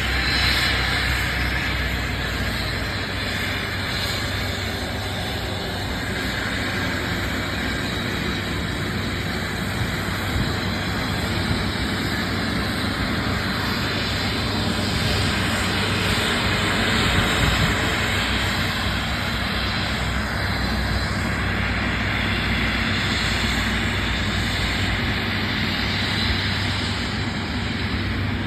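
Steady engine noise: an even rushing hiss over a low hum, with a faint high whine, unchanging throughout.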